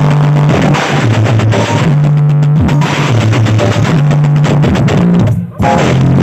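Loud DJ dance music with drums and a heavy bass line of long low notes, played through a miniature sound system; the music drops out for a moment near the end.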